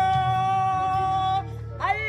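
A song with a singing voice over backing music: the voice holds one long high note for about a second and a half, breaks off, and starts a new phrase near the end.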